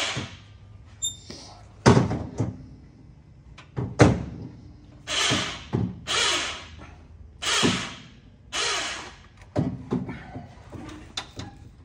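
Irregular metal clunks and knocks, with several short half-second noisy bursts in between, as a transfer case hung from an engine hoist is lowered and shifted into a vehicle's chassis.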